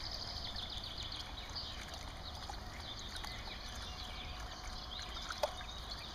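A shallow stream trickling and babbling over a low steady rumble, with one short click about five seconds in.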